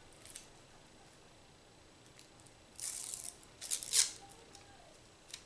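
Fingernail picking at and peeling protective plastic film off the back of a new Samsung Galaxy Tab E tablet: two short crinkly scratches about three and four seconds in, the second the louder, with a few faint clicks.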